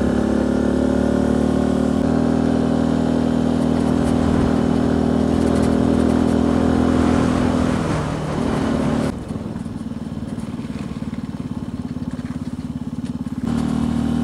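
Benelli TNT 125's single-cylinder 125cc engine running steadily under throttle while the bike is ridden. About eight seconds in, the throttle eases off and the engine runs quieter at low revs for about four seconds, then picks up again near the end.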